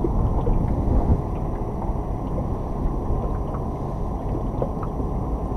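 Wind buffeting the microphone: a steady low rumble that rises and falls, with no distinct events.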